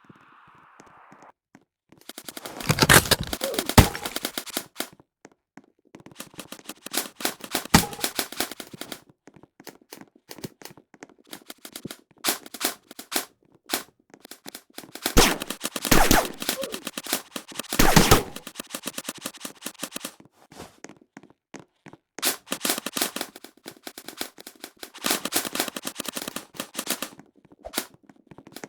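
Airsoft guns firing in rapid bursts of sharp cracks, several volleys with short gaps between them.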